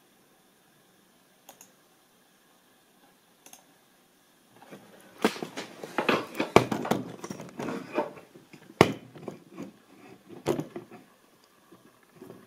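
Two light clicks, then several seconds of irregular rustling, rubbing and knocks from a hand-held camera being moved and handled. The loudest sharp knock comes about nine seconds in.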